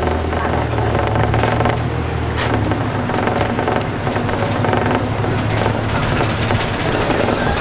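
City bus engine running, heard from inside the cabin at the front; its low note drops about two and a half seconds in as the bus eases off.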